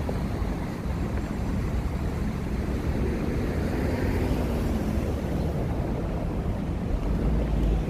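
City street ambience: a steady low rumble of road traffic, swelling slightly about seven seconds in.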